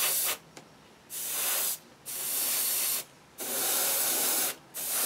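Airbrush spraying paint in short trigger bursts: a steady hiss of air and paint that stops just after the start, then comes back four times, each burst lasting about half a second to a second with brief pauses between.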